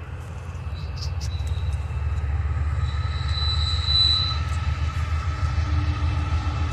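Approaching diesel locomotives: a low engine rumble that grows louder as the train nears. A thin high whine swells and fades, loudest about four seconds in.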